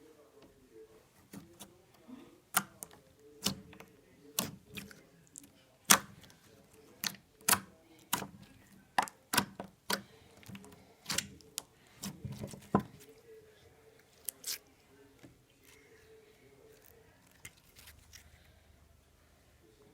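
Honey slime being squished and poked: an irregular run of sharp clicks and pops, thinning out after about three quarters of the way through.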